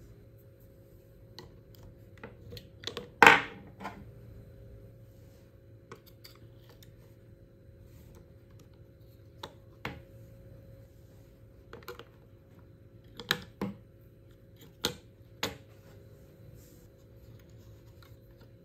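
Scattered hard plastic clicks and clacks of AA batteries being prised out of a worklight's spring-contact battery compartment and set down. The loudest is a sharp ringing clack about three seconds in, and shorter clicks come singly and in pairs later on.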